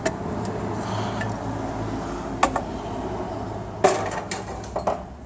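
Sharp metallic clinks and knocks as a tight steel drive plate is worked loose and levered off the crankshaft, about six in all, the loudest near four seconds in, over a steady low hum.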